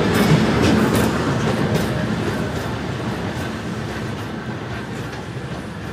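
A train rolling close past, its rumble and the clatter of its wheels over the rail joints fading steadily as it draws away.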